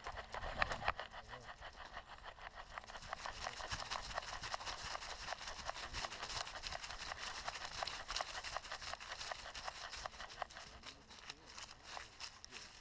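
Hiking footsteps crunching over the trail surface: a dense, steady run of crackles.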